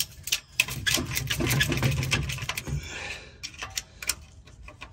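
Ratchet wrench clicking rapidly as exhaust bolts under the truck are turned. The clicks are densest in the first three seconds and sparser after.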